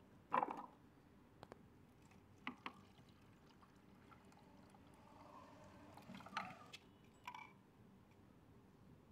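Water poured from a large plastic bottle into a plastic bowl, a soft trickle lasting a few seconds, with a few sharp knocks and clicks from the bottle being handled, the loudest about half a second in.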